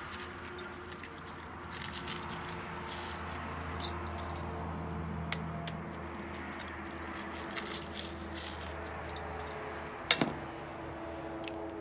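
Raw eggs being cracked against the rims of aluminium pots and dropped onto broth-soaked bread: scattered sharp taps and clicks, the loudest one about ten seconds in. A steady low hum runs underneath.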